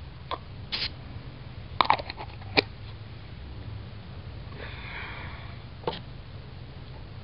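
Light clicks and taps from gloved hands handling leaf stencils on a metal ammo box, the sharpest about two and a half seconds in. A brief hiss comes about a second in and a fainter one about five seconds in.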